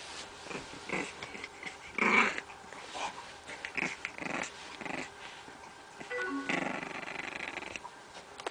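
Bulldog puppy making a string of short growls and grunts about a second apart, the loudest about two seconds in, then a longer growl near the end.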